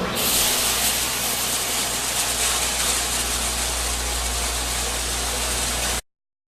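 Hot-water spray parts washer running with its lid shut: a steady rush of spraying water over a low steady hum, cutting off abruptly about six seconds in.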